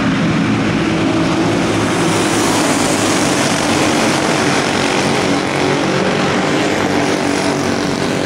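Small engines of a pack of racing go-karts buzzing together as they run past at racing speed, a steady, loud drone of several overlapping engines.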